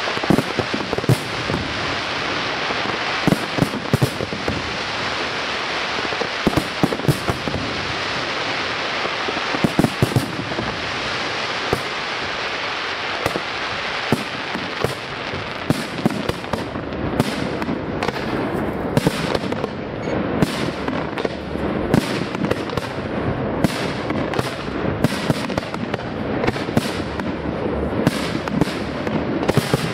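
Aerial fireworks display: a dense, continuous crackle from crackling stars and comet tails, with many sharp bangs of shells bursting, coming more often in the second half.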